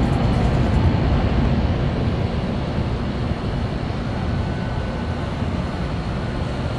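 Steady low rumble of city background noise with no distinct events.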